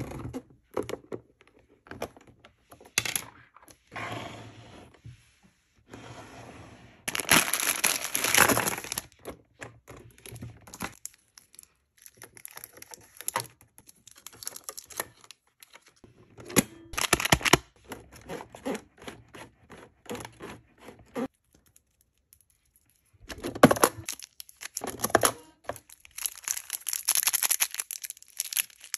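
Crinkling of foil candy-bar wrappers mixed with clicks and knocks of a plastic toy vending machine being handled, in several louder spells with quieter handling between.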